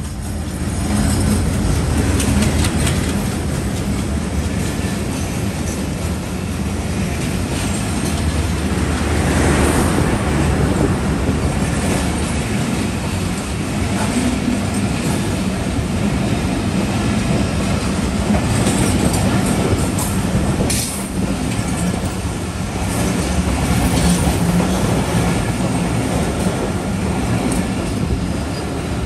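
WDM-3A diesel-electric locomotive passing close by with its engine running, followed by a long rake of PT INKA passenger coaches rolling past with a steady clatter of wheels over rail joints.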